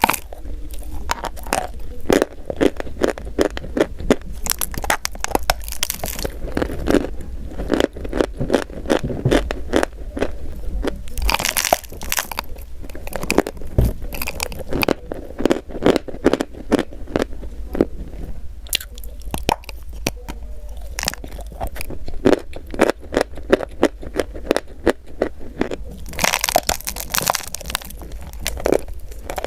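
Close-miked crunching and chewing: dense crisp cracks as something brittle is bitten and ground between the teeth, with louder bites near the middle and near the end.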